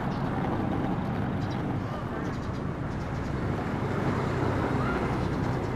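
Steady street traffic noise with a low vehicle engine hum.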